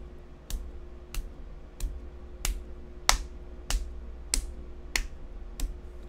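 Sharp clicks or taps repeating evenly, about three every two seconds, over a faint steady hum.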